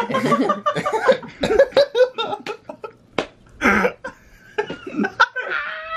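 People laughing and giggling in short, broken bursts, with a cough-like breathy burst partway through.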